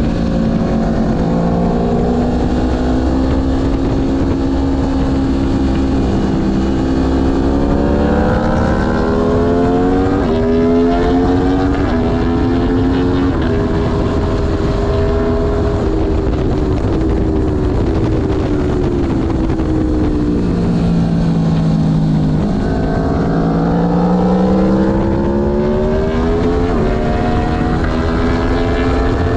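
Aprilia Tuono V4 motorcycle's V4 engine heard onboard at full throttle on track, the pitch climbing through the gears with short dips at the upshifts, dropping as the rider backs off and slows for a corner, then rising hard again.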